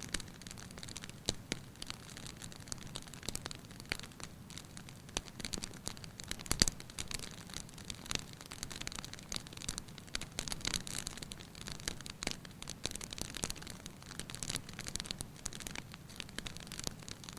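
Wood fire crackling in a fireplace: a steady hiss with frequent small pops, the sharpest about six and a half seconds in.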